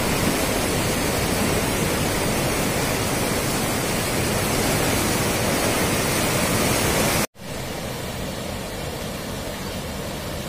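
A river in heavy flood, its fast, turbulent water rushing past a concrete embankment: a loud, steady rush. It cuts off sharply about seven seconds in and resumes at once, quieter, where the water swirls around bridge piers.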